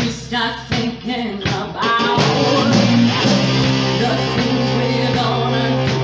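Rock band of electric guitar, bass, drums and female voice playing. For the first two seconds the band plays short stabbed hits with gaps between them, then from about two seconds in it plays on steadily with held notes under the voice.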